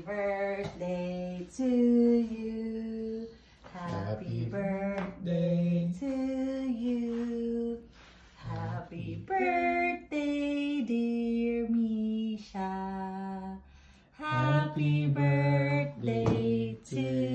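A woman singing a song in short phrases, each ending on a long held note.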